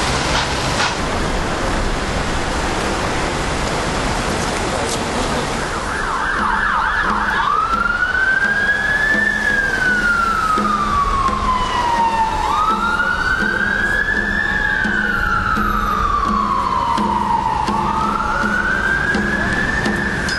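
Busy street traffic, then about six seconds in an emergency vehicle siren starts with a brief fast yelp and switches to a slow wail that rises and falls about every five seconds.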